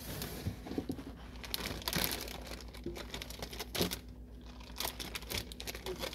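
Plastic food packaging crinkling and rustling, with irregular clicks and knocks from plastic refrigerator shelves and drawers, as someone rummages through a fridge. A steady low hum runs underneath.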